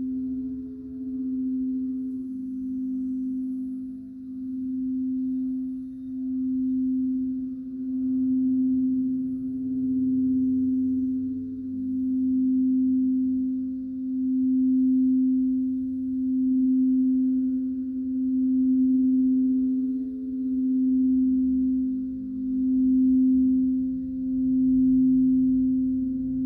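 Singing bowl held in one long, steady ringing tone that swells and fades about every two seconds, with a fainter higher tone stepping up and down above it.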